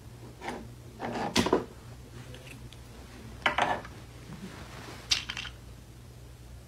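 Light knocks and clatters of small objects on a wooden dresser top as a cat paws at them, in four short bursts a second or two apart, the loudest about a second and a half in.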